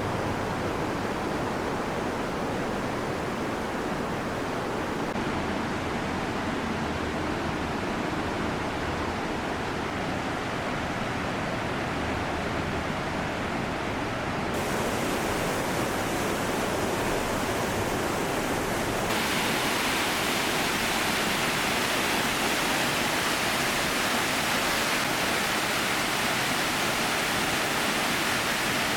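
Steady rushing of water falling at Iguazu Falls, an even roar of noise with no pauses. Its brightness changes abruptly three times, about 5, 15 and 19 seconds in.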